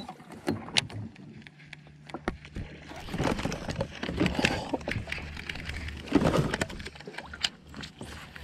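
Water splashing and sloshing around a kayak in two swells, with scattered sharp clicks and knocks and a faint low steady hum underneath.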